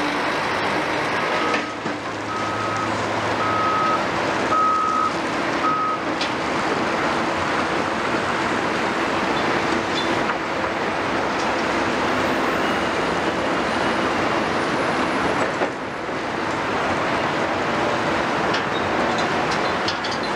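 Steady din of heavy diesel construction machinery working together: tracked excavators, a wheel loader and a mobile rock crusher processing demolition rubble. A reversing alarm beeps about five times in the first six seconds.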